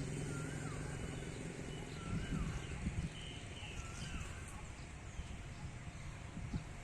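Outdoor park ambience: a songbird repeats a short whistled call that rises and then falls, about every two seconds, with other birds chirping higher. A low vehicle rumble fades out in the first couple of seconds, and a few soft knocks come near the middle.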